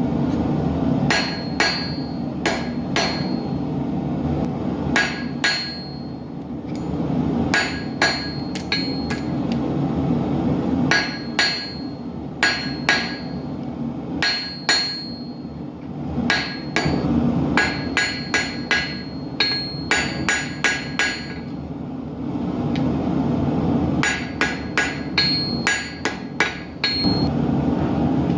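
Hand hammer forging hot steel arrowheads on an anvil: quick runs of ringing metal-on-metal blows with short pauses between them. Underneath runs a steady rushing noise, typical of a gas forge burner.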